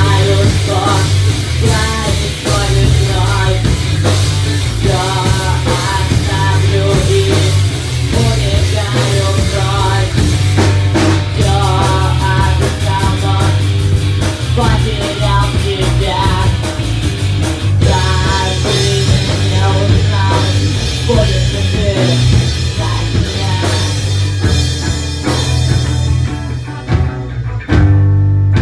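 Rock song with a singing voice over drum kit, guitar and a steady bass line.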